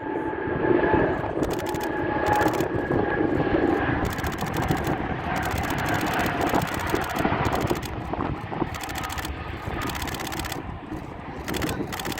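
Boeing 777 freighter's twin GE90 turbofan jet engines running loud, a steady whine over a broad rumble, the whine fading after about four seconds. Repeated short bursts of clicking run through it.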